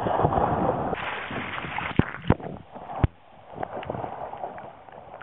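Water rushing and sloshing along the hull of a small homebuilt sailing boat (a light trow) running before the wind, with three sharp knocks between about two and three seconds in. The rushing eases off after the knocks.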